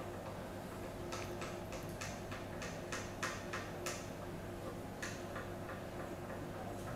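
Burst-strength tester inflating a clamped denim seam specimen, with a steady low hum. A run of about a dozen sharp ticks, roughly three a second, comes between about one and five and a half seconds in as the fabric bulges under pressure.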